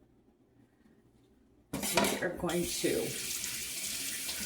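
Kitchen sink faucet turned on a little under two seconds in and running steadily, with dishes and utensils clinking as it starts.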